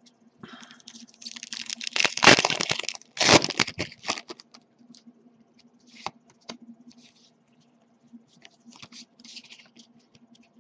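A Pokémon booster pack's foil wrapper being torn open and crinkled, loudest about two to three and a half seconds in, followed by light clicks and rustles of the trading cards being handled and sorted.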